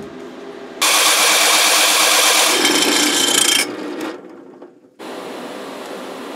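Drill press driving a hole saw through the wall of a thin metal cylinder: about three seconds of loud, harsh cutting, then the sound dies away as the bit winds down. After a short gap, a steadier, quieter hiss starts about five seconds in.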